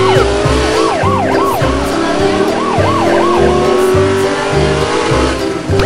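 Background music with a steady beat, overlaid with groups of short siren-like whooping sweeps and a tone that slowly rises in pitch.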